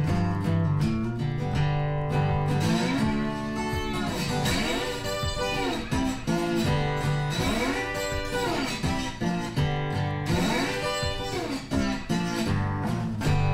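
Background music: a guitar instrumental with strummed acoustic guitar and notes that repeatedly slide up and back down in pitch.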